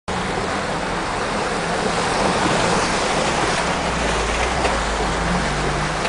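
Off-road vehicle's engine running at low speed over a rough dirt trail, a steady low hum under constant road and rattle noise, heard from inside the cab.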